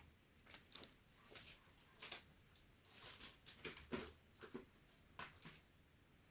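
Faint, irregular clicks and light scrapes of small hand tools being handled, a set of spline/Torx bits being sorted through.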